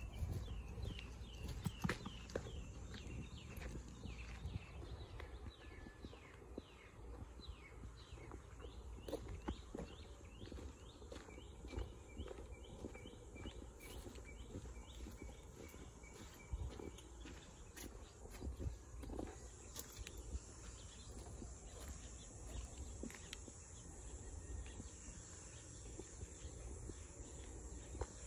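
Footsteps crunching over gravel and dry grass, with wind rumbling on the microphone, while a bird chirps over and over in quick falling notes. About two-thirds of the way through, a steady high insect buzz comes in.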